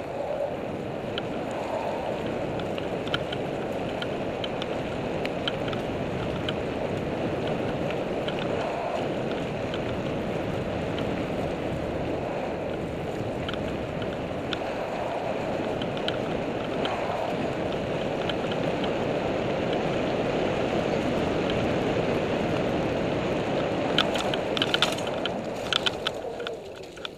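Mountain bike riding fast down a dirt and gravel trail: a steady rush of wind on the mounted camera's microphone and tyre noise, with scattered rattles and clicks from the bike. A burst of sharp rattling comes about 24 seconds in, then the rush dies down near the end.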